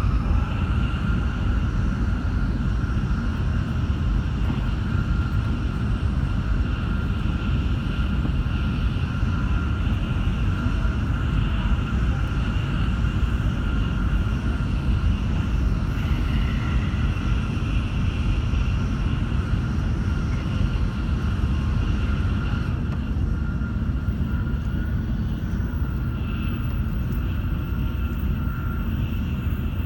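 Shinkansen bullet train running at steady speed, heard on board: a constant low rumble and hiss with a faint steady high whine.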